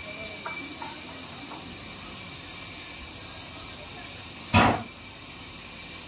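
A heavy log knocking once against a sawmill's steel log carriage as it is shifted into place: a single loud thump about four and a half seconds in, over a steady hiss and faint voices.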